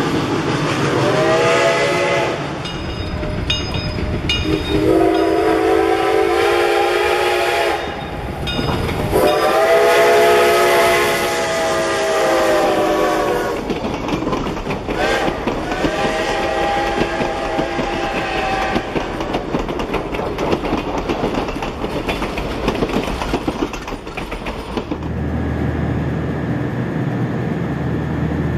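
Steam locomotive chime whistle blowing four long blasts as a steam-hauled passenger train passes, over the steady rumble and clatter of the coaches' wheels on the rails. About 25 seconds in the train sound cuts off and a steady low hum takes over.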